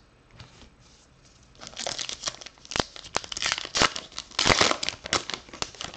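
Plastic wrapper of a 2019 Topps Archives baseball card pack crinkling as it is torn open. A dense run of crackles starts about a second and a half in.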